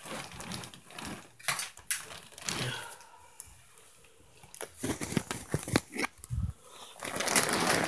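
A string of irregular knocks and clicks, with a single deep thud about six and a half seconds in and a rush of rustling noise near the end.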